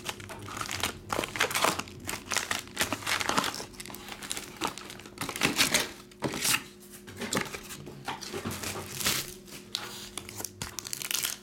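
Foil trading-card packs crinkling and rustling as they are pulled from the box, stacked and handled, with many irregular crackles and clicks.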